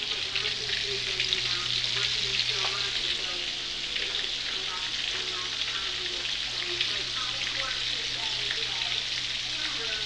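Flour-battered chicken pieces deep-frying in hot grease in a stovetop pan: a steady, dense crackling sizzle of many small pops.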